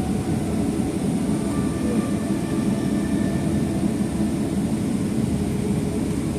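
Steady cabin rumble inside a Boeing 737-800 on the ground before takeoff, from its engines and air-conditioning running at low power, with a few faint steady whines above the rumble.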